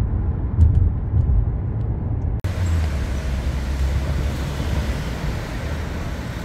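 Low road rumble from a car moving at highway speed, heard inside the cabin. About two and a half seconds in it cuts abruptly to city street traffic: a steady hiss of passing vehicles over engine rumble.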